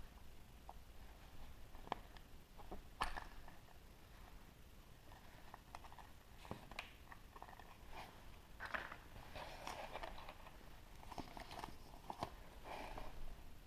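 A chocolate surprise egg being unwrapped and opened by hand: a foil wrapper crinkling in short bursts, with scattered sharp clicks and cracks.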